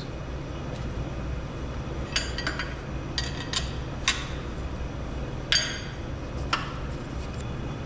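Hand tools and steel parts clinking while the cylinder liner clamps of a Detroit Diesel 3-53 engine are undone: a scattering of sharp metallic clinks, some ringing briefly, clustered around two to four seconds in with single clinks later on.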